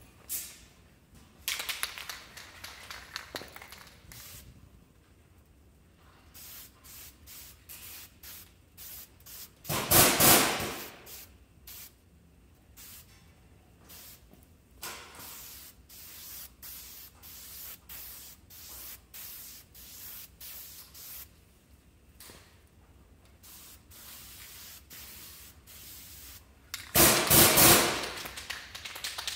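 Aerosol spray paint can sprayed in many short hissing bursts. Two louder bursts of noise come about ten seconds in and near the end.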